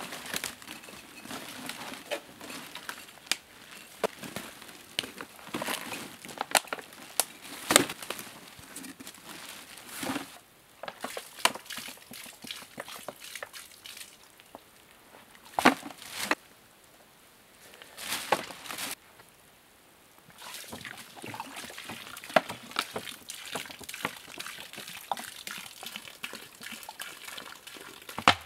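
Water sloshing and trickling, broken by irregular sharp clicks and knocks, the loudest about a third and halfway through, with two quieter stretches between.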